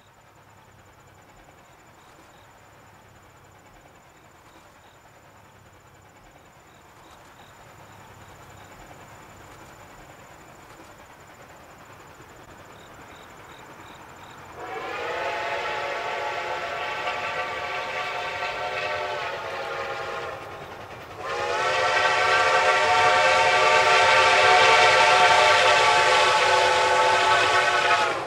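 Steam locomotive whistle of Reading T-1 class 4-8-4 No. 2102, sounded in two long blasts, the first about halfway through and the second, louder and longer, following a second later. Before them, insects chirp faintly over a low rumble that slowly grows.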